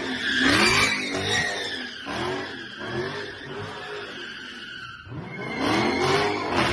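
Dodge Charger's V8 revving up and down over and over while the rear tyres squeal and slide, the car spinning in donuts on concrete. The loudest surges come about half a second in and again near the end.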